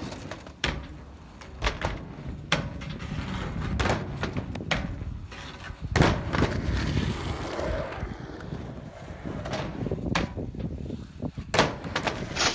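Skateboard wheels rolling over skatepark ramps, broken by repeated sharp clacks of the board hitting the surface; the loudest knock comes about six seconds in.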